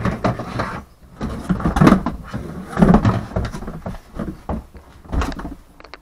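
Handling noise from the plastic parts of a Mastervac wet/dry shop vac being taken apart: the hose and canister scraping and knocking in irregular bursts, with a sharp knock about five seconds in.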